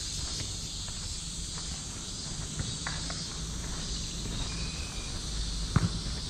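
Steady shrill chorus of cicadas, with faint footsteps and a single louder thump near the end.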